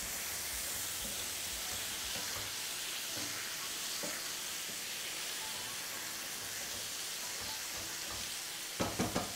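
Courgette slices sizzling as they fry in oil in a frying pan, stirred with a wooden spatula. Three quick knocks come near the end.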